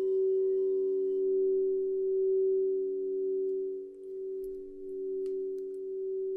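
Several singing bowls sounding together in a sustained, nearly pure-toned chord, swelling and fading slowly in a gentle wavering pulse, with a few faint ticks midway.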